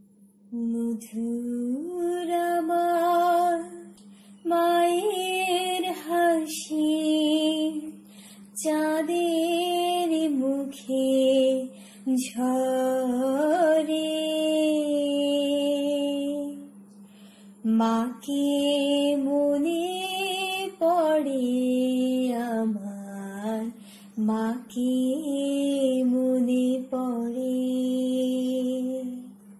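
A woman singing a slow, unaccompanied melody in long phrases with short breaks between them, over a steady low drone.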